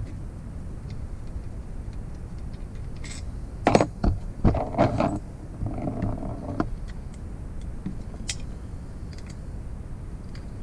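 Metal tools and engine parts clinking and clattering in a burst of about three seconds, starting about four seconds in, over a steady low hum.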